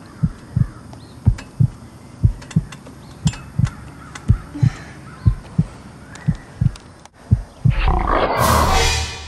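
Heartbeat sound effect: a low double thump about once a second. About eight seconds in, a loud roar sound effect takes over and becomes the loudest sound, fading out at the end.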